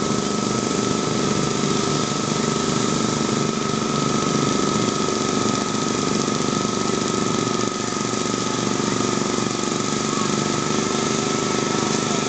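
Sears garden tractor's engine running steadily under load as it pulls a weight-transfer sled, with a steady high whine through it.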